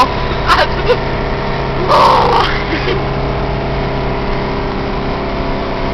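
Car engine and road noise droning steadily inside the cabin, with short bursts of girls' laughter, the loudest about two seconds in.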